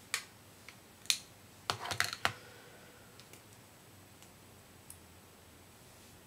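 Small plastic clicks from handling and uncapping a Lancôme Maquicomplet concealer tube: a few sharp clicks, with a quick cluster of them about two seconds in and fainter ticks after.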